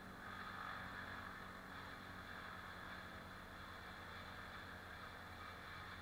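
Faint, steady engine drone heard from a distance, getting a little louder about a quarter second in.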